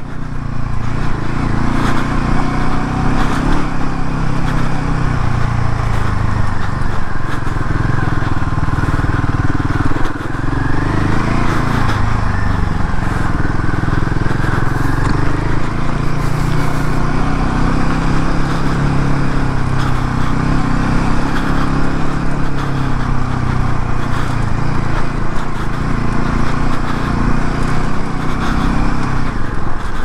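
Royal Enfield Himalayan 450's single-cylinder engine running as the bike is ridden over a trail of loose sand and stones. Its pitch rises and falls with the throttle, dipping briefly about ten seconds in.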